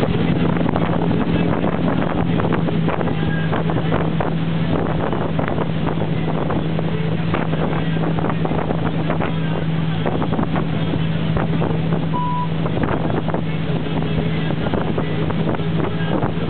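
Motor launch under way: its engine running with a steady, unchanging hum, over the rush of water and wind buffeting the microphone.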